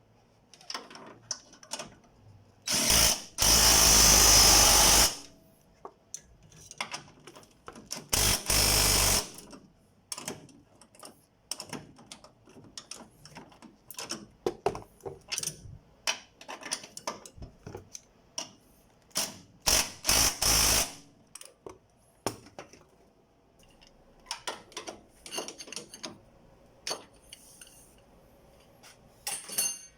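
Cordless 18-volt DeWalt impact wrench running in several short bursts of one to two seconds, tightening engine-mount bolts. Between the bursts come small clinks and knocks of tools and parts being handled.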